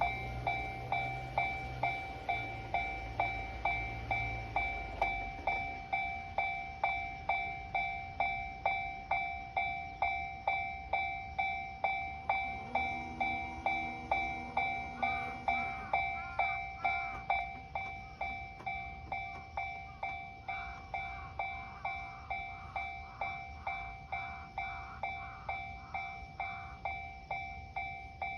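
Japanese level-crossing warning bell ringing at an even pace, about two strikes a second, with a low rumble under it for the first few seconds.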